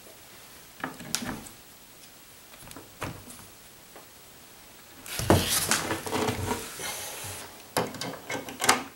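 Particleboard furniture parts being handled: a few light knocks, then a louder stretch of scraping and rubbing as the base frame is moved and fitted against the cabinet bottom, followed by several sharp knocks near the end.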